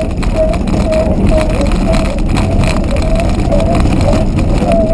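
Hound dogs barking on a deer's scent, short barks repeating about twice a second, under a loud, steady low rumble.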